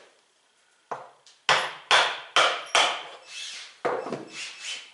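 Hammer tapping a screw into the red plastic tank of a Bauer shop vac, about ten sharp blows starting about a second in, because the screw won't go in right.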